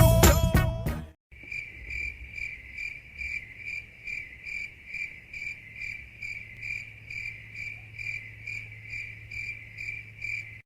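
Cricket chirping in an even, steady rhythm of about three chirps a second: the stock comedy sound effect for an awkward silence. It comes in just after a music clip cuts off about a second in.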